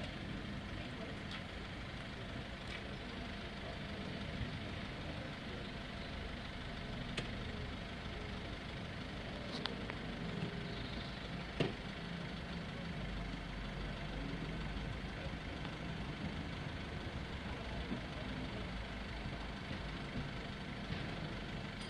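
Minibus engine idling steadily, with a few faint clicks and one short knock partway through.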